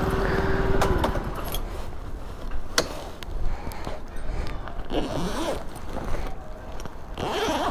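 Scooter keys clicking and jangling, then the zipper of a soft insulated delivery bag being pulled open in short strokes, over a low rumble. A steady hum stops about a second in.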